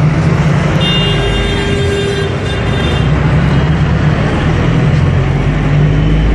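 Steady road traffic: motor vehicle engine and tyre noise, with a faint high-pitched tone about a second in that lasts some two seconds.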